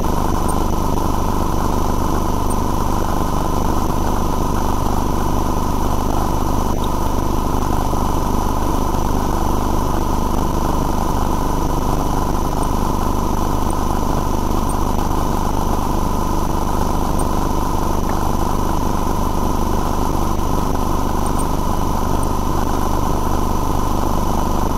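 Steady machine drone with a constant whine, unchanging throughout.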